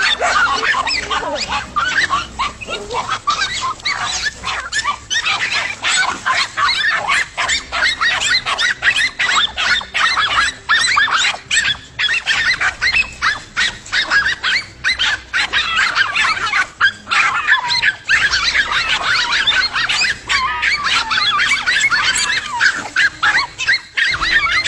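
Dogs barking rapidly and without pause, the barks overlapping, with a few higher yelps mixed in.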